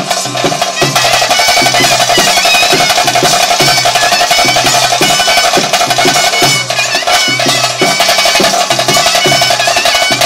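Live traditional bhuta kola ritual music: a reed pipe plays a wavering melody over a steady, driving drum rhythm.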